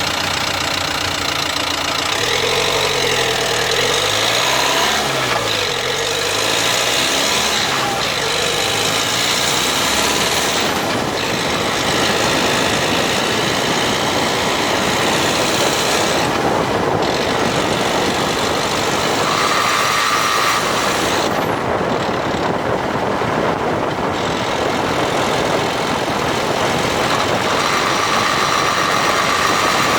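Dacia Duster dCi 4x4 driving, steady engine and road noise with wavering tones over it and a higher tone that comes and goes in the second half. This is the grinding noise under light acceleration in 5th or 6th gear, which the owner suspects is a faulty drive shaft.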